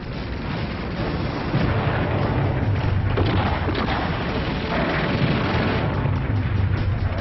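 Battle soundtrack of rumbling explosions, a dense low rumble that grows louder about a second and a half in, with further blasts swelling around the middle.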